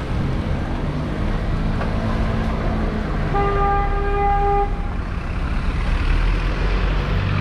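Steady city traffic rumble with engines running, and one steady car horn honk lasting about a second and a half near the middle.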